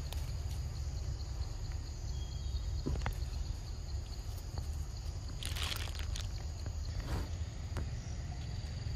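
Forest ambience: a steady high insect drone over a steady low rumble, with a few scattered clicks and rustles of monkeys moving over leaf litter. The most prominent rustle comes about six seconds in.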